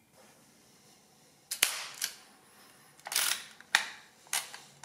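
Sharp mechanical clacks from the Hamann Delta mechanical calculator's workings, about half a dozen at irregular intervals, some with a brief metallic ring.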